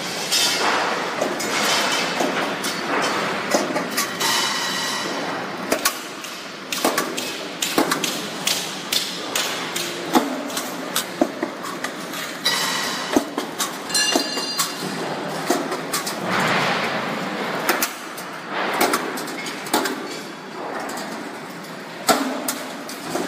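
Steel-strip punching and forming line for solar water heater brackets running, with irregular sharp metal knocks and clanks over steady machine noise.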